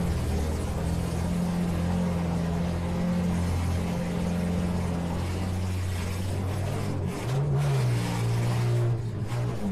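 Demolition derby minivan engines running steadily, with one revving up briefly and dropping back about seven seconds in.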